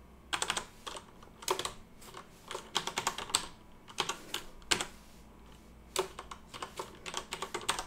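Computer keyboard typing in short irregular bursts of keystrokes, with a pause of about a second around five seconds in.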